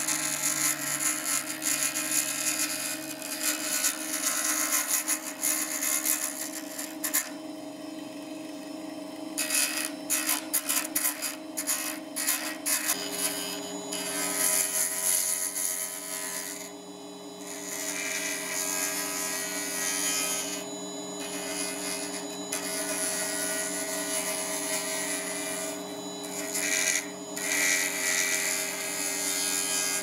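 Wood lathe running with a steady motor hum while a hand-held turning tool cuts a wooden pen blank on a mandrel, giving an on-and-off scraping as shavings fly off. The hum shifts in pitch about a third of the way through.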